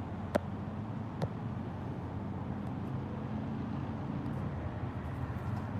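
Steady low rumble of a motor vehicle running, with two sharp clicks of fingers handling the phone, about a third of a second and just over a second in.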